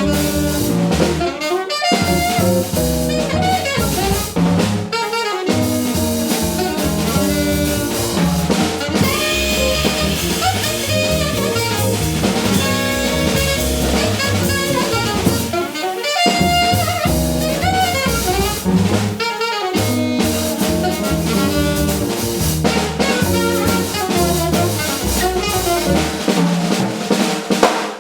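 Small jazz group playing live: saxophone lead over bass and drum kit.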